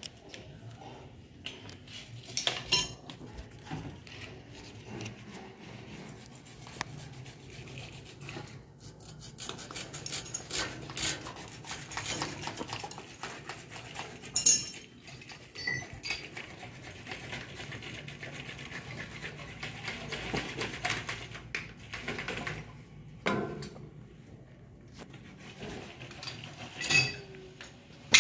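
Metal hand tools and pipe fittings clinking and clattering as they are handled and set down during plumbing work, with scattered sharp knocks and a few louder clanks.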